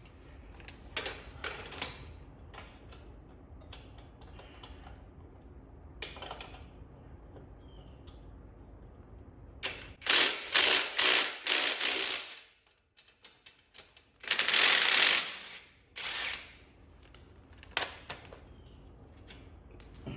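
Hand ratchet wrench being worked on a fastener, with two fast rattling runs of about two seconds each near the middle. Scattered clicks and knocks of tools come before them.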